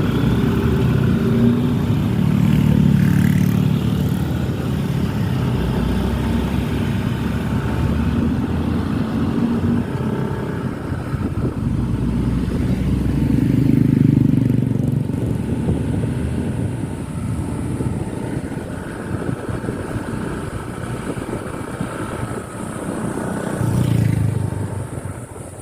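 Bus engine running under way, its sound swelling louder a few times as it revs.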